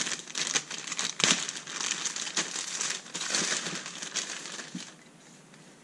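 Clear plastic parts bag crinkling and rustling as hands handle it, in irregular bursts that stop about five seconds in.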